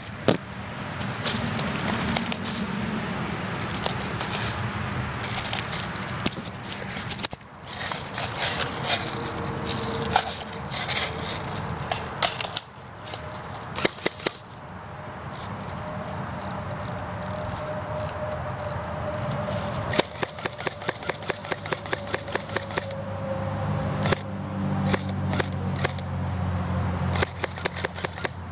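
Airsoft guns firing in sharp clacks throughout, with a quick, evenly spaced run of shots about two-thirds of the way through.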